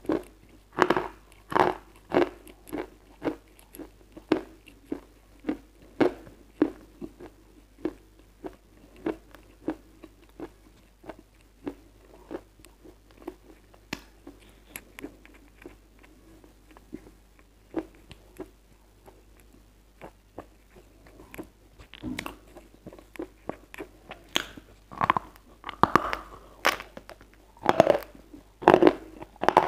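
Close-miked chewing of a lump of white edible chalk: sharp dry crunches about two a second, thinning out and growing fainter through the middle, then louder bites and crunches near the end.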